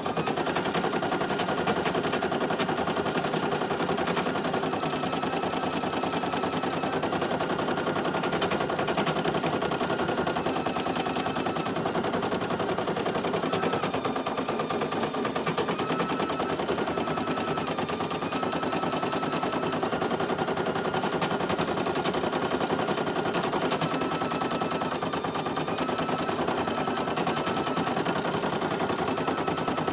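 Brother PE800 single-needle embroidery machine stitching fast: a rapid, steady needle clatter with a faint motor whine that steps slightly up and down in pitch as the hoop moves.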